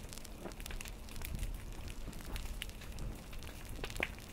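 Small fires burning along the front of an advancing pahoehoe lava flow, crackling and popping irregularly, with a sharper pop near the end.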